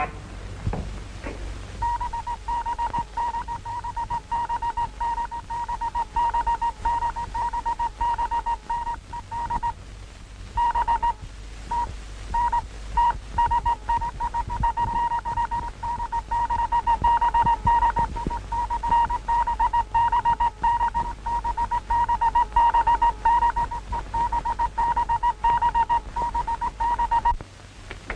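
Morse code sent on a wireless telegraph set: a single steady beep keyed on and off in short and long pulses, starting about two seconds in and stopping near the end.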